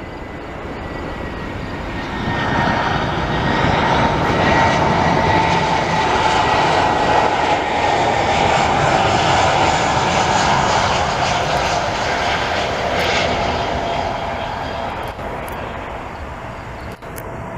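Jet airliner's engines passing by loud, swelling over a couple of seconds, holding, then slowly fading, with a high whine that gradually falls in pitch.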